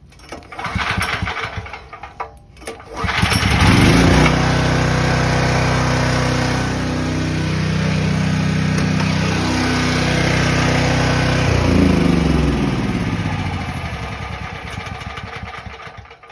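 The single-cylinder engine of a Briggs & Stratton Storm Responder 6250 portable generator, newly converted to run on propane or natural gas, is recoil-started with the choke closed. It catches about three seconds in and runs steadily, then about twelve seconds in it slows with a falling pitch and dies out near the end, a stall that leaves it needing another start.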